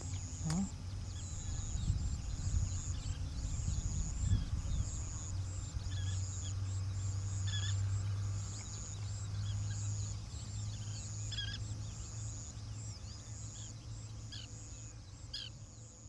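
Outdoor ambience: a few short, separate bird calls several seconds apart, over a high, even chirping that pulses about twice a second. A steady low rumble lies under it all.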